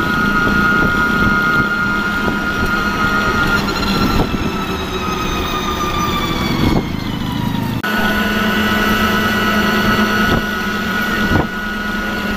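Three-wheeled rickshaw's motor running along a road: a steady whine over road rumble. The whine slides down in pitch over a few seconds in the middle, then breaks off abruptly and comes back steady.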